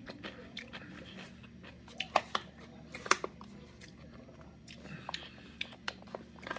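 Close-up chewing of crunchy pickled vegetables (pickle chips and pickled carrot). A run of small crunches, with a few sharper, louder bites about two and three seconds in.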